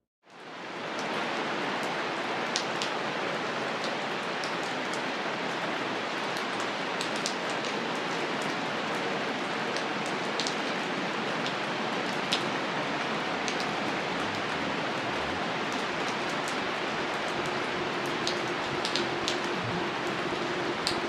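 Steady rain falling, fading in quickly at the start, with scattered sharp drips landing on top of the even hiss.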